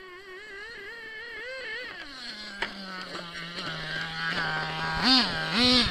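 Small nitro engine of a HoBao Hyper 7 RC buggy: a wavering high-revving buzz for about two seconds, dropping to a steady idle, then blipped up and down about twice a second near the end, louder with each rev.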